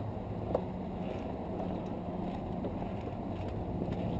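ARB twin on-board 12V air compressor running steadily, a low hum from its pump and cooling fans, with a light click about half a second in.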